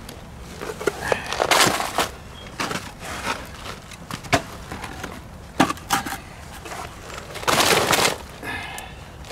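Wooden cribbing blocks being handled and stacked at a house sill. Several sharp wood knocks come with two longer scraping, sliding stretches, one early on and one near the end.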